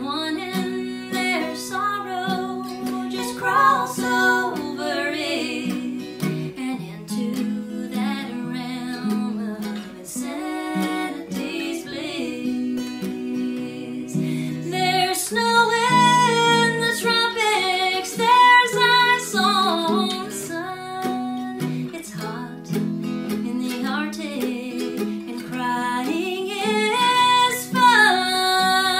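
Acoustic guitar and mandolin playing together, with a woman singing over them in harmony with her own overdubbed voice.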